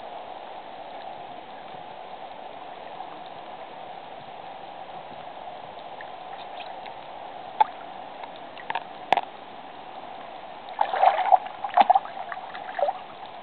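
Water lapping and gurgling against a camera held at the water's surface: a steady wash, a few sharp splashes about eight and nine seconds in, and a burst of louder splashing and gurgling about eleven to twelve seconds in as the camera dips toward the water.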